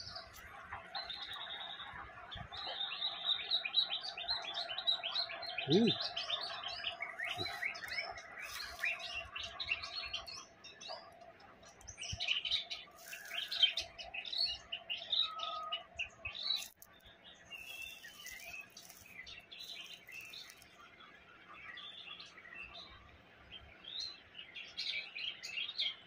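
White-rumped shama singing a long, varied song of quick whistles and chattering phrases. It is densest in the first half and turns sparser after about the middle.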